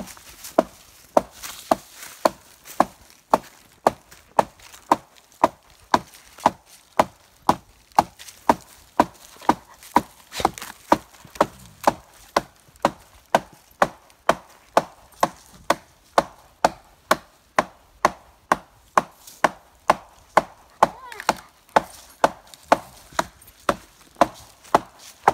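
Wood being chopped with a hatchet or axe: a steady run of sharp knocks, just under two a second, each with a short ringing tone.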